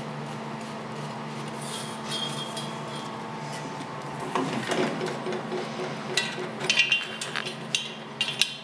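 Scattered light metallic clinks and clicks, loudest and most frequent in the second half, from work on the stainless hose clamps that hold an aluminium intercooler to a roll cage. A steady low hum runs underneath.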